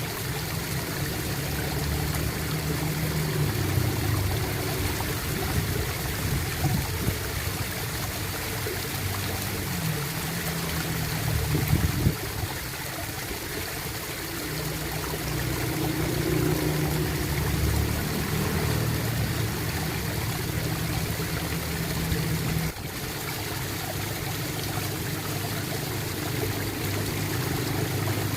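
Water gurgling and trickling steadily, like a small stream, with a slight drop in level about two-thirds of the way through.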